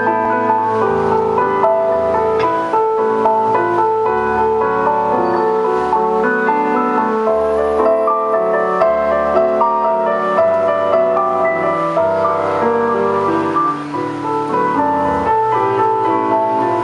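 Music played on a digital stage keyboard in a piano-like voice, with both hands; several notes are held long.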